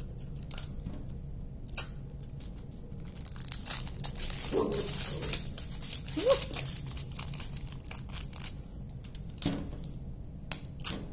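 Small plastic bags of diamond-painting drills crinkling as they are handled, with scattered light clicks.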